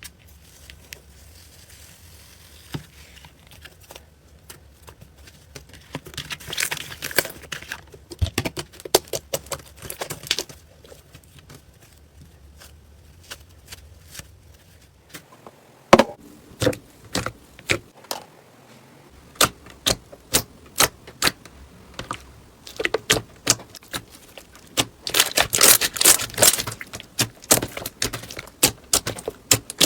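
Slime being squeezed, poked and pulled by hand, making sticky clicks and crackling pops in clusters, with quieter pauses between them. The loudest is a single sharp pop partway through.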